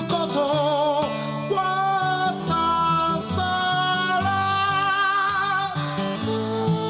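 Background music: a slow song with a wavering, held melody line over guitar accompaniment.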